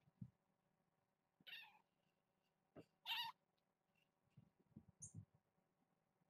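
Young kittens meowing at play: two short, high-pitched squeaky meows about a second and a half apart, the second louder, with a few soft low thumps later on.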